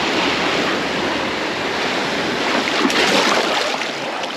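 Shallow surf washing steadily around a wader, with a short burst of splashing water about three seconds in.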